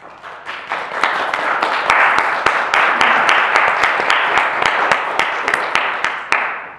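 Audience applauding: many hands clapping together, swelling over the first second, holding steady, then dying away near the end.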